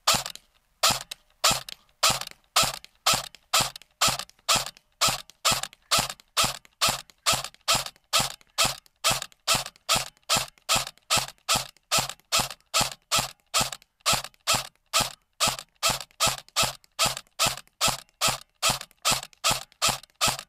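Barra 400e electric (AEG) BB rifle firing semi-auto shot after shot in a steady rhythm, a little over two shots a second, each a sharp snap of the motor-driven piston that dies away quickly.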